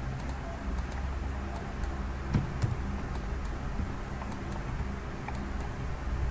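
Scattered light clicks of a computer keyboard and mouse as numbers are typed into fields, over a steady low hum.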